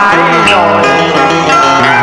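Karaoke backing music for a Vietnamese cải lương-style duet, with a plucked-string melody over held accompaniment, played loud through the stage PA.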